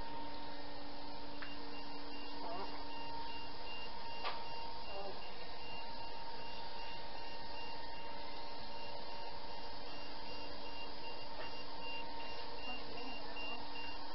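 Steady hum of a basement pump running. A faint, high, pulsing beep starts about a second and a half in and carries on over it.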